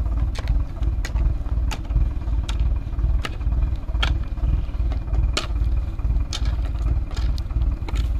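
Shovel blade striking and scraping stony soil in short sharp clicks, about one every second or less, over the steady low rumble of a digger's engine idling.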